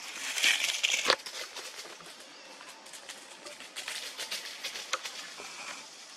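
Tree branches and leaves rustling and creaking as macaques clamber and pull at a baby, with a harsher rustle and a sharp snap about a second in, then scattered light clicks.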